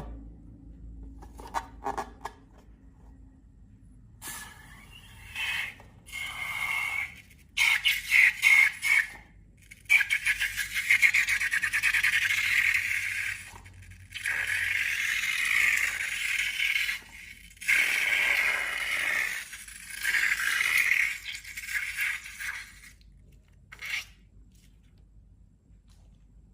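Slime being worked and scraped in a container: stop-start stretches of crackly scraping, each one to three seconds long, with short pauses between them, and a last brief one near the end.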